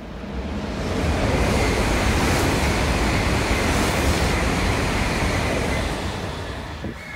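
A train passing at speed on a nearby track: a rumble and rush of air that builds over about a second, holds steady, then fades near the end, with a faint steady whine through it.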